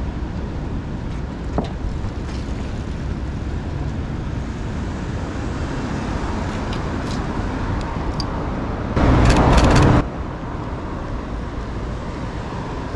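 City street ambience: steady road traffic noise, with a loud burst of noise lasting about a second that starts and stops abruptly about nine seconds in.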